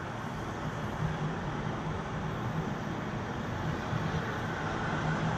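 Steady outdoor street noise, road traffic with a constant low hum, and no sharp events standing out.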